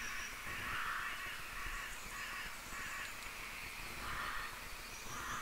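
Faint, harsh bird calls repeated several times in a row in the background.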